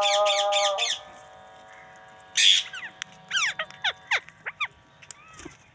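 Rose-ringed (ring-necked) parakeet calling: a loud harsh screech, then a quick series of short, sharply falling chirps and a final arched call. In the first second, a steady held tone with several rapid high strokes over it stops abruptly.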